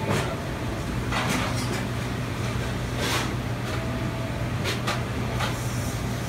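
Busy commercial kitchen background: a steady low machine hum, with a handful of short clatters and knocks as plates and plastic containers are handled.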